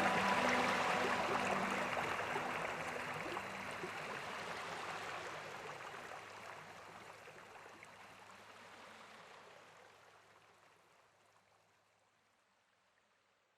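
Steady rush of cascading water with soft background music, the whole sound fading out gradually to silence about twelve seconds in. The music's held notes drop away within the first few seconds.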